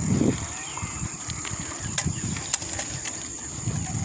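Wind buffeting the microphone of a camera on a moving bicycle, a rumble that surges and fades, strongest at the start. A few sharp clicks from the bike rattling over the concrete come about two seconds in, with a steady thin high whine throughout.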